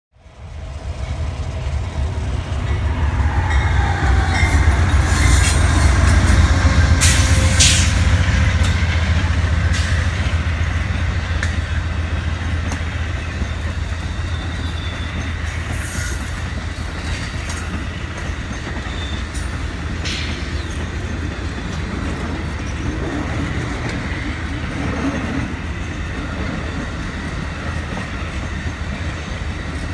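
Amtrak Coast Starlight passenger train passing close by: the steady low rumble of its locomotives and bilevel Superliner cars, loudest about six seconds in. Wheels click over rail joints and squeal briefly now and then.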